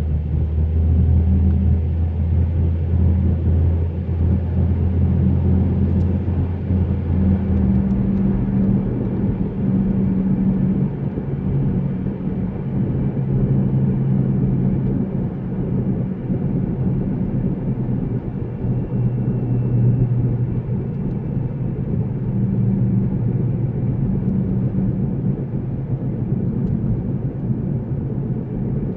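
A 2005 Mazda 3 2.0L driving, with steady road and engine rumble whose low engine note changes about eight seconds in. It carries a knock from the front driver side, heard after the gas is released, which comes from an unevenly worn brake rotor.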